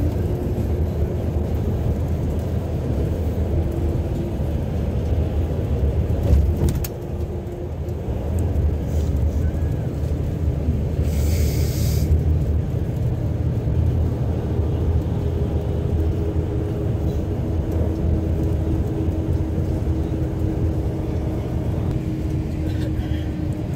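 Steady low rumble of a moving vehicle heard from inside as it travels, with a knock about six seconds in and a brief hiss of about a second near the middle.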